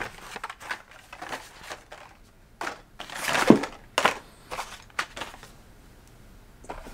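Carded Hot Wheels packs, plastic blisters on cardboard backs, being handled and pulled from the cardboard case: scattered clicks and crinkling rustles, loudest about three and a half seconds in, then quieter.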